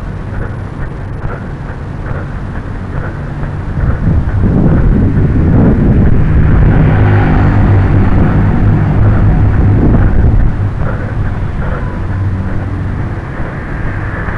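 Low rumble of wind and rubbing on the microphone of a body-worn camera carried at a walk, with faint regular footstep ticks. The rumble grows much louder about four seconds in and drops suddenly after about ten seconds.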